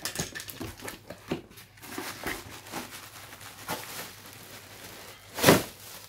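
Fan heater being unboxed: cardboard box flaps handled and crinkling plastic bag rustling as the wrapped heater is lifted out, with scattered small clicks and one louder rush of plastic rustle near the end.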